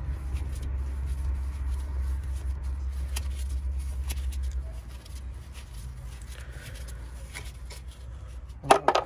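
A steady low rumble of a motor vehicle runs for the first four and a half seconds, then fades. Light clicks of metal brake caliper parts being handled come through it, and there is a short, louder clatter near the end.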